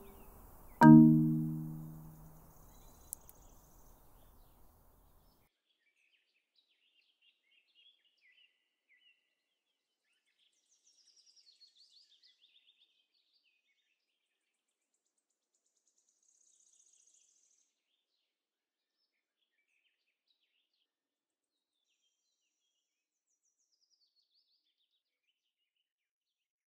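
Marimba struck with yarn mallets in a final low chord about a second in, the notes ringing out and fading away over about four seconds. Afterwards only faint, scattered bird chirps.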